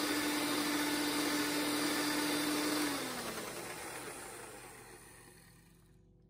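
Black+Decker electric hand mixer running steadily with its beaters in cream cheese in a glass bowl. About three seconds in it is switched off: the pitch drops as the motor spins down and the sound fades away.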